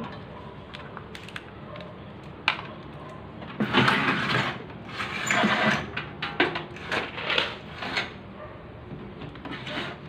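Handling noise from an opened microwave oven and its cables being moved about: a few sharp clicks, then several seconds of scraping and rubbing, loudest in the middle.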